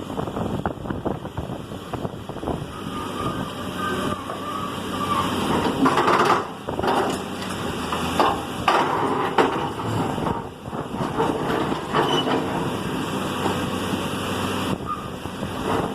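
A heavy machine's engine running steadily while a house is torn down, with repeated cracking, crunching and crashing of breaking wood and debris, loudest a few times midway.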